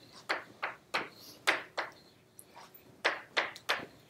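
Chalk writing on a blackboard: a quick run of short, sharp taps and strokes as letters are written, about three a second, with a short lull in the middle.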